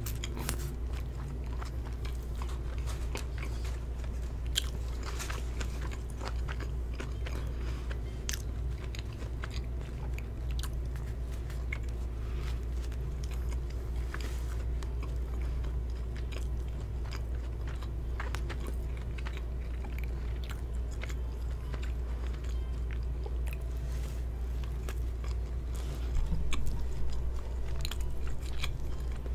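Close-miked chewing of a McDonald's burger: soft wet mouth clicks and smacks over a steady low hum, growing louder near the end.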